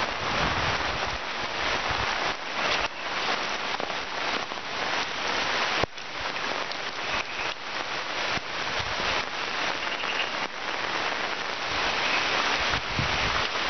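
Steady rain falling on dense forest foliage: an even, continuous hiss of drops.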